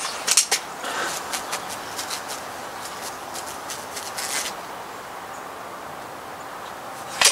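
Crosman Shockwave .22 break-barrel air rifle fired once near the end, a single sharp crack. Earlier there are a few sharp clicks about half a second in, then faint scattered clicks.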